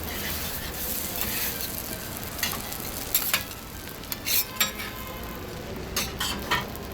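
Okonomiyaki sizzling on a hot iron griddle as a steady frying hiss, with sharp clicks and scrapes of metal spatulas against the griddle in short clusters through the middle and near the end.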